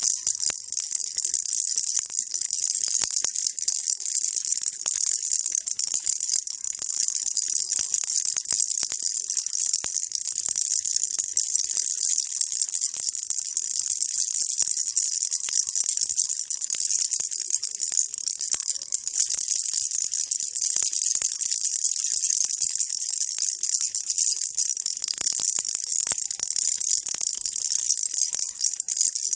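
A baby rattle shaken continuously, giving a dense, even, high-pitched rattling without pauses.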